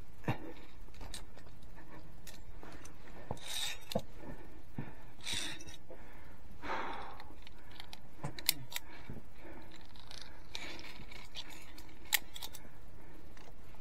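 Metal clinks of via ferrata carabiners against the steel safety cable, with scrapes of hands and gear on the rock, as the climber moves up. The clicks come scattered and irregular, two of them sharper than the rest.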